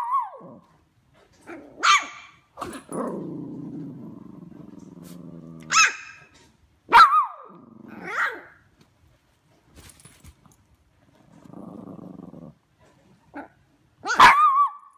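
Two puppies, a mini goldendoodle and a shih tzu poodle mix, barking at each other in play with short, sharp, high barks every second or few. A long low growl runs from about three seconds in, and a fainter growl comes near the twelfth second.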